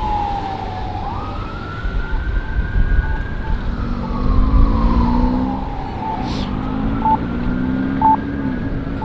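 Emergency vehicle siren on a slow wail, its pitch sliding down, climbing back up and holding, then sliding down again, with a second, lower wailing tone joining in the middle. Strong wind buffets the microphone underneath.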